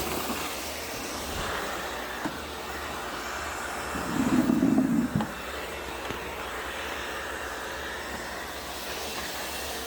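A vacuum cleaner running steadily, with a louder, lower stretch lasting about a second, starting about four seconds in.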